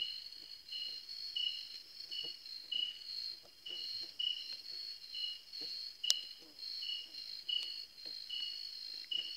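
Night insects calling, crickets: a steady high-pitched trill runs throughout, and a second insect chirps about every 0.7 seconds. A single sharp click comes about six seconds in.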